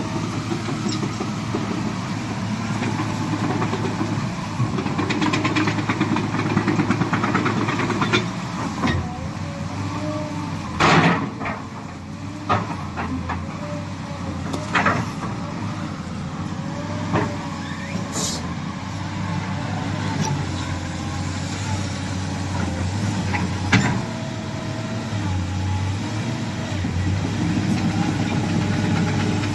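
Sany SY215C excavator's diesel engine running steadily while the machine is worked, with several sharp clanks and knocks scattered through, the loudest about eleven seconds in.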